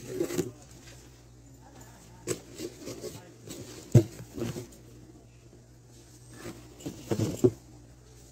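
Scattered knocks and rustles of objects being handled, with one sharp knock about four seconds in and a quick cluster near the end, over a steady low hum.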